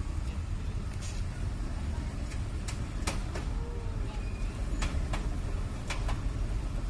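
Steady low rumble of heavy diesel vehicle engines, from a loaded canter truck stuck in the mud and a tractor behind it, with several short sharp clicks or knocks scattered through.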